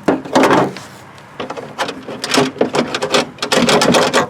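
Hands working parts inside the door of a 2008 Chevy Equinox during a lock actuator replacement: a loud knock and scrape at the start, then a quick run of clicks, knocks and rubbing of the parts being shifted about inside the door.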